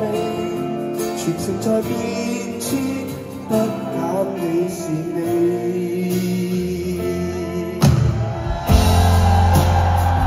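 Pop-rock band music with a sung lead vocal over guitar. About eight seconds in, the full band hits and a heavy bass line comes in, and the music gets louder.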